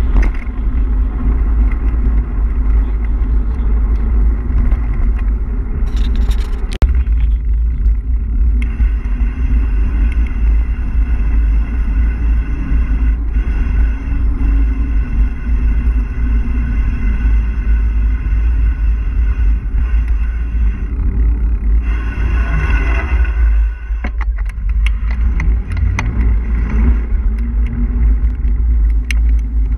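Wind buffeting the microphone of a camera on a moving mountain bike, a heavy steady rumble, along with the hum of its tyres rolling on tarmac. A brief harsher noise rises about twenty-two seconds in.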